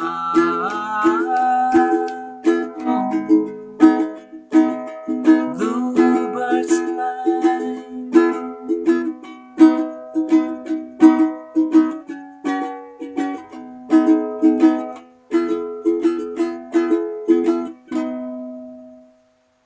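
Ukulele strummed in a steady rhythm, playing a song intro through a clip-on lavalier microphone; the last chord rings out and fades near the end.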